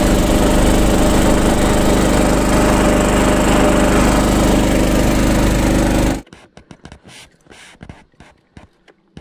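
Boat engine running at speed, a loud steady drone mixed with wind and rushing water, which cuts off abruptly about six seconds in. Near quiet follows, with a few light clicks and knocks.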